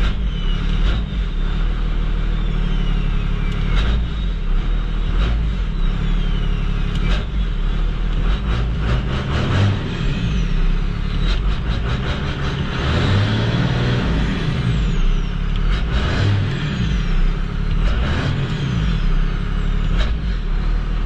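5.9-litre 12-valve Cummins turbo diesel working against its newly fitted exhaust brake, the engine note rising and falling. A high whistle falls in pitch several times.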